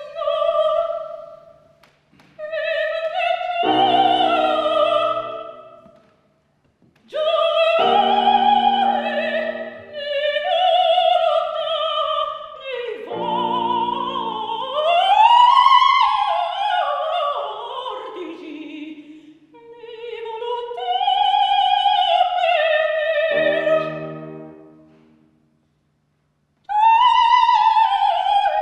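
Operatic singing by a high voice with strong vibrato, in several phrases with short pauses between them, one phrase sweeping up and then sliding down in pitch.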